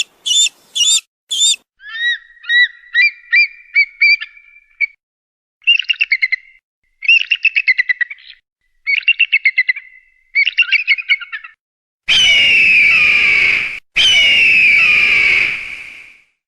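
Hawk calls: short high notes and rapid chattering bursts, then near the end two long harsh screams of about two seconds each.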